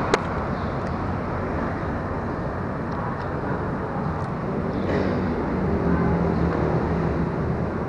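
Steady low rumble of distant engines and traffic, with a sharp click just after it begins.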